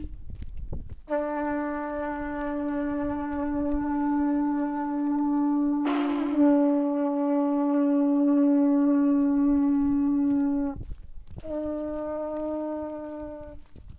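A traditional horn trumpet blown in two held single-pitch blasts: one long note of about ten seconds with a brief rasp midway, then a shorter one of about two seconds.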